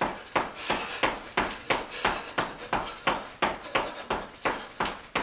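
Sneakered feet landing on a hard floor in quick high-knee running in place, a steady beat of about three footfalls a second.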